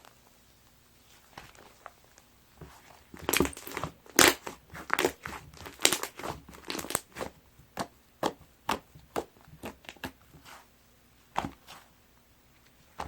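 Chocolate sherbet slime, a crunchy cloud slime made with instant-snow powder, being pressed and worked by hand. It gives a quick run of crisp crackles and crunches for several seconds in the middle, then one more near the end.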